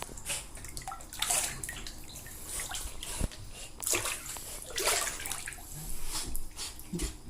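Bathwater sloshing and splashing as a dog plays in a tub, a string of irregular splashes.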